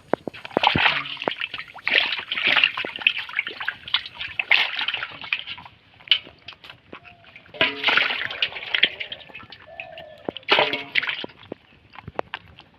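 Shallow water sloshing and splashing in about five separate bursts, the sound of hands working through the water during fishing by hand.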